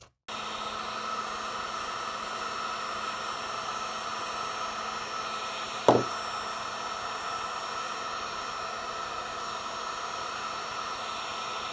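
Heat gun running, a steady blowing hiss, with a single sharp knock about six seconds in.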